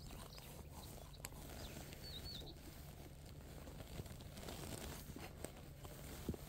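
Quiet outdoor background with a faint bird call, a short wavering whistled phrase about two seconds in, and a few faint ticks.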